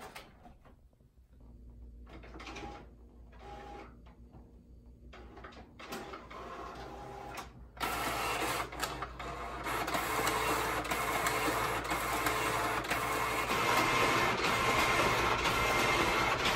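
HP OfficeJet inkjet printer running a print job. First comes a few seconds of short, separate whirs and clicks, then from about eight seconds in a loud, continuous mechanical whirring as it feeds and prints.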